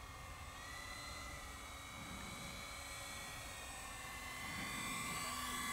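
The twin electric motors and propellers of an Avios Albatross HU-16 RC flying boat whining steadily on landing approach, growing louder as the plane nears.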